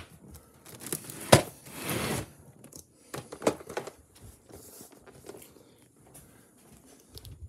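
Handling noise of a hand brushing and tapping plastic VHS clamshell cases on a shelf: a sharp click about a second in, a rustling scrape right after, then scattered lighter clicks and rustles.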